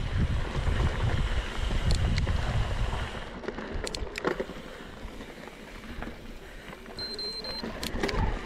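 Wind buffeting the microphone and mountain bike tyres rolling over a dirt trail at speed, with scattered sharp clicks and knocks from the bike. The rumble is heaviest for about the first three seconds, then eases.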